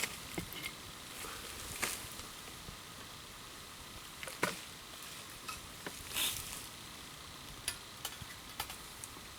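Wood campfire burning, with irregular crackles and pops over a steady hiss.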